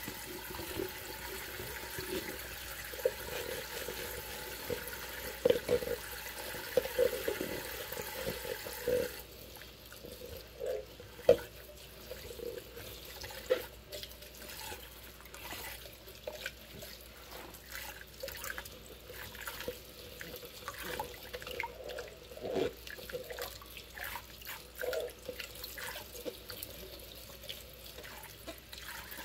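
Dishwashing in a stainless-steel sink of soapy water: a clear plastic cup is scrubbed with a mesh scrubber and sloshed in the suds by rubber-gloved hands, with splashes and light knocks. A steady rush of running water goes on for about the first nine seconds, then stops suddenly.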